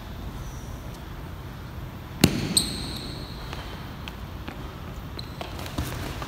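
Boxing sparring in a large hall: a single sharp thud a little over two seconds in, followed by a short high squeak, over the steady hum of the hall. A few faint knocks come near the end.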